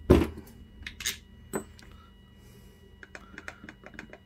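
A hard knock as a cordless screwdriver is set down, then scattered light clicks and ticks as the plastic housing and chuck of a corded drill are handled, with a quick run of small clicks near the end.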